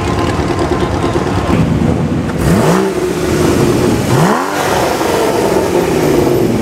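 Performance car engines revved in short rising blips as the cars pull away, twice, about two and a half and four seconds in. The second comes as a Porsche Cayman GT4 drives past with its flat-six.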